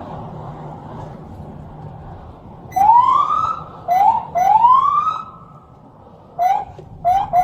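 Police siren giving a run of short rising whoops, starting about three seconds in: two longer sweeps among several quick chirps, over steady road noise.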